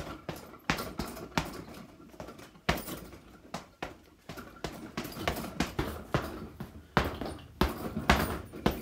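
Gloved punches landing on a hanging heavy bag, sharp irregular hits, then quicker runs of strikes on a speed bag rattling against its rebound platform in the second half.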